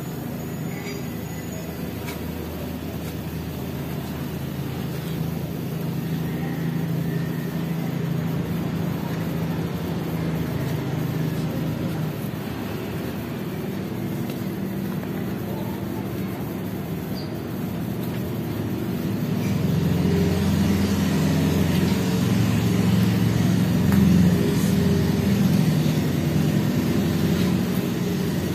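A motor vehicle's engine running close by, a steady low drone that gets louder about two-thirds of the way in.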